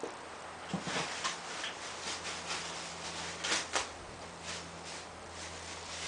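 Handling noise from solar kit parts and wiring: a few light knocks and rustles, the loudest pair about three and a half seconds in, over a steady low hum.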